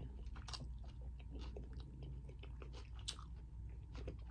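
A person chewing a mouthful of taco with the mouth closed: faint, irregular small clicks, a few a second.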